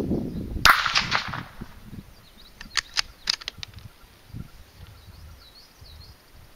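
A Marlin Model 80 bolt-action .22 LR rifle fires one sharp shot, with a short ringing tail, about a second in. About two seconds later come a few quick metallic clicks as the bolt is worked.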